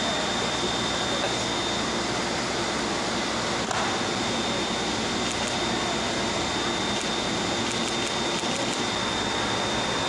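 Steady machinery noise: an even hiss with a constant thin high-pitched whine, with one brief click a little under four seconds in.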